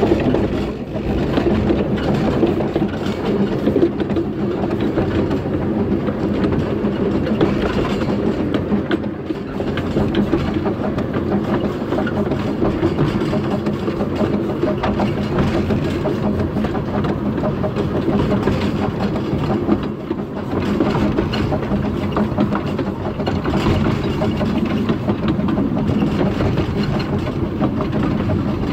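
Kerr Stuart Wren class narrow-gauge steam locomotive running along the line, heard close up from its footplate: a steady mix of exhaust and wheels on rail, easing briefly in loudness three times.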